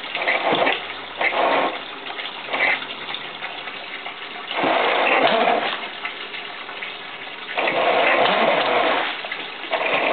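Water churning and splashing around a radio-controlled boat in irregular bursts: several short ones and two longer ones of about a second and a half each.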